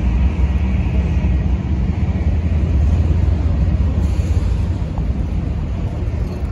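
Freight train cars rolling past, a steady low rumble of wheels on the rails.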